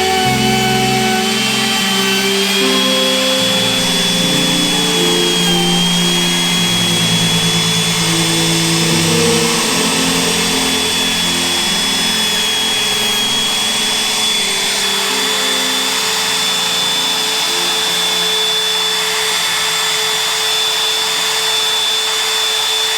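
Handheld wood router running steadily with a high whine, cutting a hinge mortise into a door's edge through a template jig.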